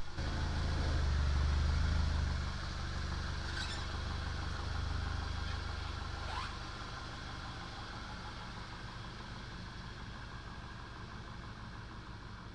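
VW Mk6 GTI's turbocharged 2.0 litre four-cylinder idling steadily, freshly fitted with new Denso 'R8' red-top coil packs to cure a misfire. It is louder for the first two seconds, then quieter and steady.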